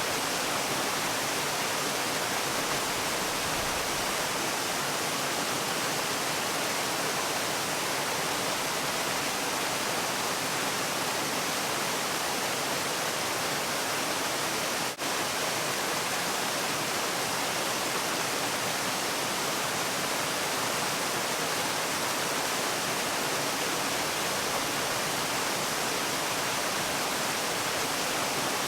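Waterfall, water pouring in a steady, even rush with no change in level, broken only by a momentary dip about halfway through.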